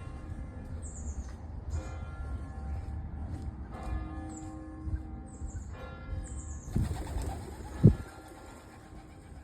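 Church bells ringing, struck every couple of seconds, with each stroke ringing on in several tones. Birds give short high falling chirps over them, and a sharp thump stands out near the end.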